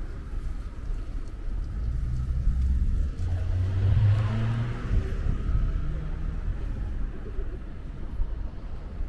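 A motor vehicle running with a low engine rumble. Its note rises and grows louder for a couple of seconds around the middle, then settles back.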